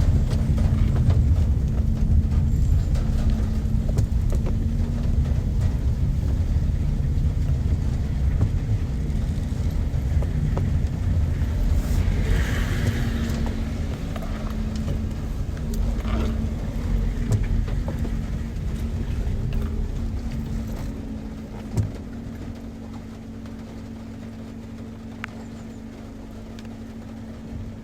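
Low, steady rumble with a constant hum, like a motor vehicle running. It eases off about two-thirds of the way through, with a single click near the end.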